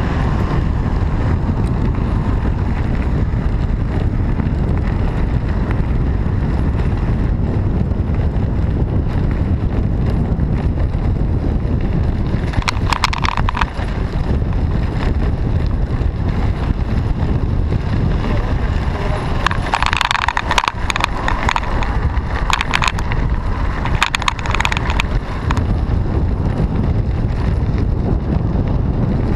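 Wind buffeting the microphone of a camera riding on a moving bicycle: a steady low rumble. Short spells of a sharper, higher sound cut through it about 13 seconds in and again from about 20 to 25 seconds.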